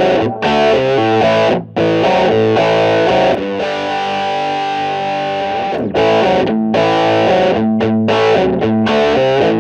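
Distorted electric guitar playing a rock riff through a MOTHER VIVID three-band EQ: chopped chords with short stops, one chord held for a couple of seconds around the middle and ending in a downward slide, then choppy chords again.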